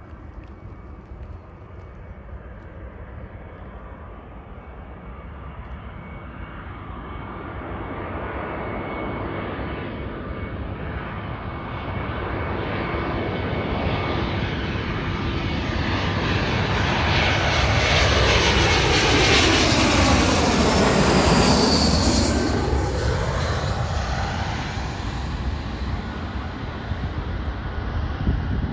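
Jet airliner passing close by, its engine noise growing steadily louder to a peak about twenty seconds in, then beginning to fade.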